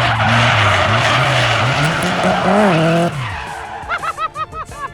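Car tyres squealing hard over a steady engine note, the engine pitch dipping and rising, then the squeal and engine drop away about three seconds in. A run of short pitched chirps follows near the end.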